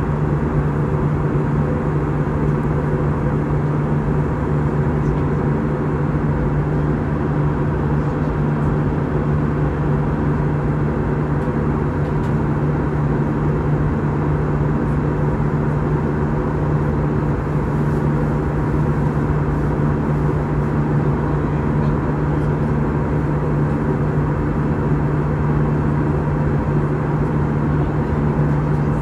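Jet airliner engines and airflow heard from inside the passenger cabin: a steady noise with a constant low hum and a few fainter steady tones above it.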